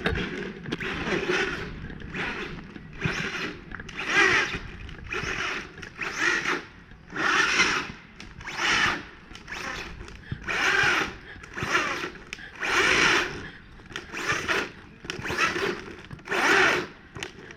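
Electric RC car with a brushless motor and HPI Savage Flux ESC, driven in a dozen or so short bursts of throttle. The motor whines with each burst, and each burst lasts under a second.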